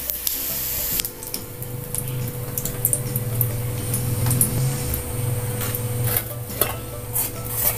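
Scattered light clinks and taps of metal cookware and utensils over a steady low hum.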